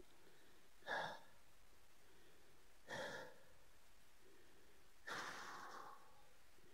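A person breathing out hard three times, heavy sighing exhalations about two seconds apart, the last one longer. It is the breathing of someone winded from heaving a fallen motorcycle back upright.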